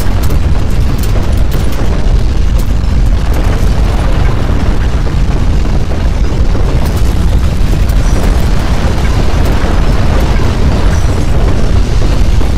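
Loud, steady deep rumble of earthquake shaking, with a few faint crackles near the start.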